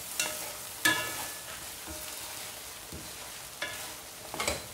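Long beans and vegetables sizzling in a grey stone-coated wok as a wooden spatula stirs and tosses them, with sharp knocks and scrapes of the spatula against the pan about a second in and again near the end.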